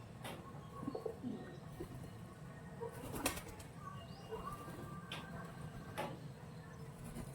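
Pigeons cooing, with wings flapping and about five sharp taps.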